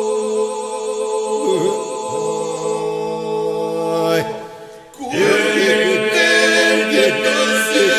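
Albanian Lab iso-polyphonic men's singing, a cappella: a group holds a steady drone while ornamented, wavering solo lines weave above it. About four seconds in, the voices fall away to a brief lull, and about a second later the group comes back in, louder.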